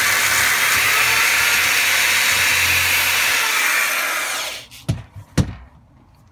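Power drill with a sanding disc running and sanding wood, then the trigger is released and the motor winds down about four seconds in. It is followed by two sharp knocks as the drill is put down on the bench.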